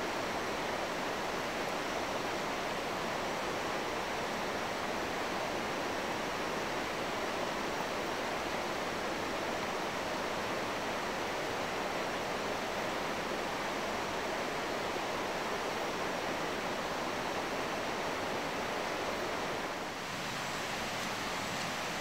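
Steady, even rushing noise of water, with no separate sounds standing out; it dips slightly near the end.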